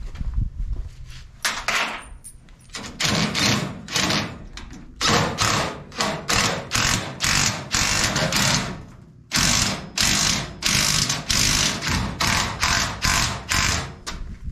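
A few metal clanks, then a cordless power driver running in short repeated bursts, about two a second, with a brief pause about nine seconds in, as it tightens bolts on a steel hitch carrier.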